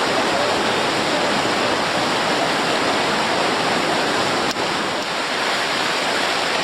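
Rushing white water of river rapids, a loud steady roar of water, with a brief dropout about two-thirds of the way through.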